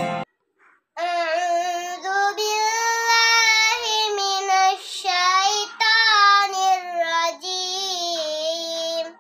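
A young girl reciting the Quran in tartil style, chanting in long held melodic notes that bend and slide in pitch, with short breath pauses between phrases. It begins about a second in, just after a piece of keyboard music cuts off.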